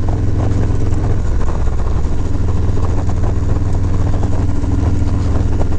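Harley-Davidson Softail's V-twin engine running steadily at cruising speed, heard from the rider's seat. The engine note drops slightly about two seconds in.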